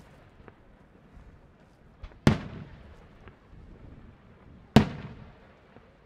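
Daytime fireworks shells bursting in the sky: two loud bangs about two and a half seconds apart, each echoing away, with a few fainter pops between.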